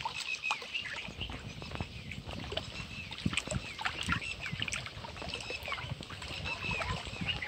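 Small birds chirping over and over in short, quick calls, with water lapping against the rocky lakeshore underneath.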